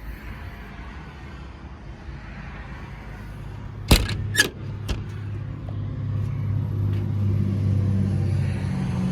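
A diesel truck engine idling, getting steadily louder from about five seconds in, with three sharp knocks about four to five seconds in.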